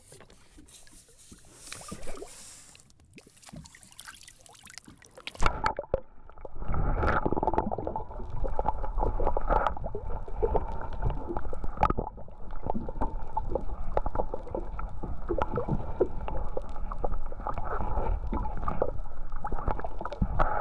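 Camera dipped under sea water: faint open-air sound at first, then about five seconds in the sound turns abruptly to a low underwater rumble of water against the camera housing, full of dense crackling clicks, with a faint steady hum.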